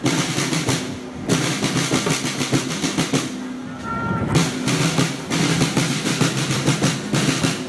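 Marching band's snare drums playing a rapid street cadence, with low sustained notes underneath. The drumming eases off briefly about a second in and again around three and a half seconds in.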